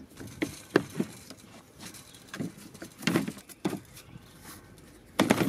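Irregular plastic clicks and knocks from the wheels and body of a Parkside PRM 1300 A1 electric lawnmower as the wheels are pushed in and shifted to change the cutting height. The two loudest knocks come about three seconds in and near the end.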